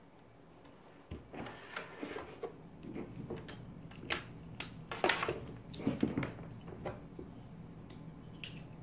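Hands handling cables and plugging a metal locking power connector together: scattered clicks, taps and rubbing, with a few sharper clicks about halfway through.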